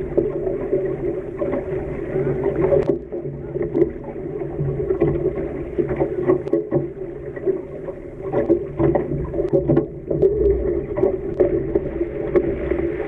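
Mach2 foiling Moth dinghy sailing at speed, heard through a masthead camera's housing: a muffled, continuous rush of wind and water with a steady hum, broken by irregular knocks and spray splashes.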